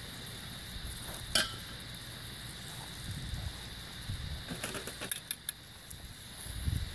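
Steak sizzling quietly on a hot cast-iron pan over a wood fire, with a few sharp clicks about five seconds in.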